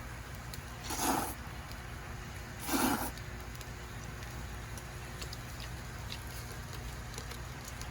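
Two short slurps from someone eating, about a second and a half apart, over a steady low hum.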